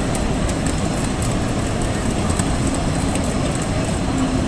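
Steady low rumble of a train, an even noise with no clear events.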